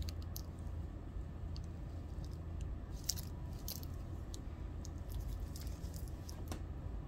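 Handling noise from a metal-bracelet wristwatch being turned in white cotton gloves: scattered soft crackles and light clicks, densest about three seconds in, over a steady low hum.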